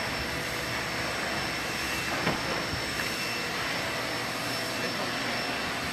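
Steady roar of city background noise, with one short sharp sound a little over two seconds in.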